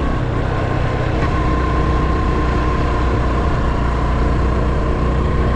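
Honda Super Cub 110's single-cylinder four-stroke engine running steadily under way, with heavy low wind rumble over the microphone.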